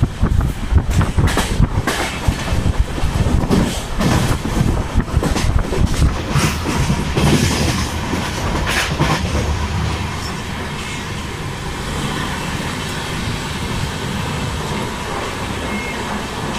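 Passenger train wheels clattering over rail joints, heard from the open doorway of the moving coach: irregular sharp clacks over a low rumble, settling into a steadier rumble about halfway through.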